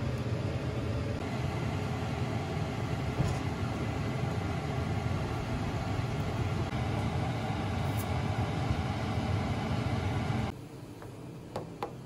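A steady low machine hum runs under the uncorking of a wine bottle with a wing corkscrew, with a couple of faint ticks from the corkscrew and cork, and cuts off abruptly about ten seconds in. Near the end a glass is set down on a stainless-steel counter with small clicks.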